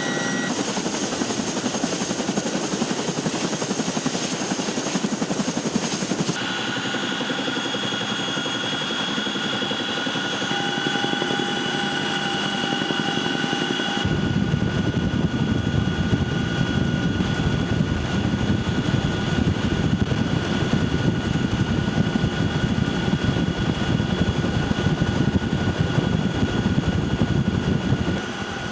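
Helicopter running: a steady turbine whine over the noise of the rotors. The sound changes abruptly about six seconds in and again about halfway through, after which a heavier low rotor beat dominates.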